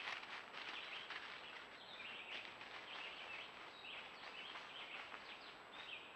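Faint outdoor woodland ambience: a chorus of high chirping calls repeating every half second or so over a soft hiss, with a thin steady high tone throughout.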